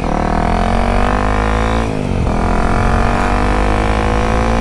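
Single-cylinder dual-sport motorcycle engine accelerating through the gears, its pitch rising, dropping at an upshift about two seconds in, then rising again and dropping at another shift near the end.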